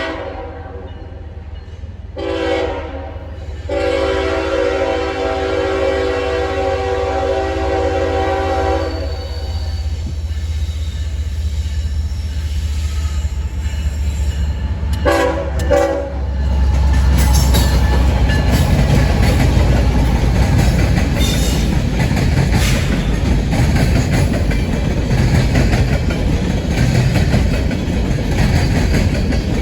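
Freight train locomotive horn sounding a grade-crossing pattern of long and short blasts over the low rumble of diesel engines, then a final short blast about halfway through. After that the train passes close by, its wheels and cars clattering steadily on the rails.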